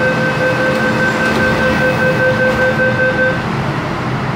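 MTR K-Train door-closing warning: a steady electronic tone, sounding at several pitches at once, that stops a little over three seconds in as the sliding doors shut. The train's steady running hum lies beneath it.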